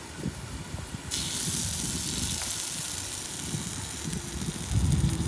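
Steady sizzling hiss of food cooking on a griddle, coming in suddenly about a second in, over a low rumble.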